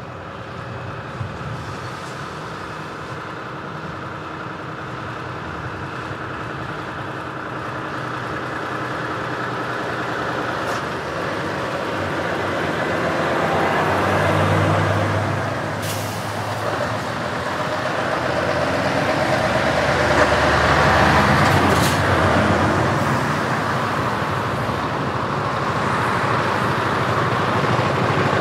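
Heavy trucks driving past one after another, diesel engines running and getting louder as they come close, a Volvo FH among them. Brief sharp hisses of compressed air cut in around the middle and again a few seconds later, typical of truck air brakes.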